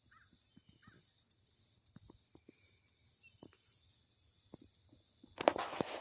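Insects, crickets or similar, chirping steadily in a high pulsing trill, with scattered faint clicks. A brief loud rustling burst comes near the end.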